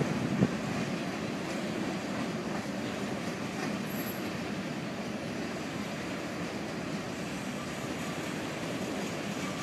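Freight cars of a mixed freight train rolling past: a steady rumble of steel wheels on the rails, with one sharp knock about half a second in.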